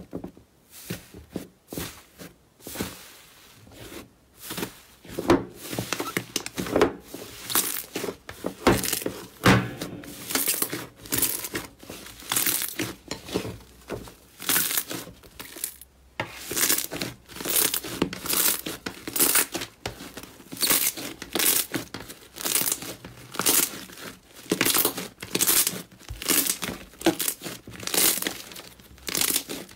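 Thick pink slime being squeezed, pressed and pulled apart by hand. Each squeeze gives a quick run of short, sharp crackles and tearing sounds, repeating every second or so.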